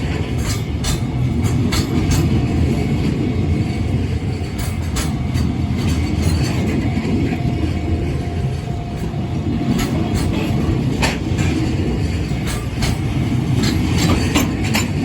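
Freight train rolling past at close range, a steady heavy rumble with a continual irregular run of sharp clacks as the wagon wheels cross the rail joints.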